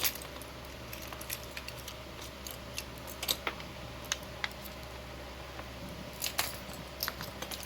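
Irregular small metallic clicks and taps of a metal probe working inside the gutted padlock's pin chambers.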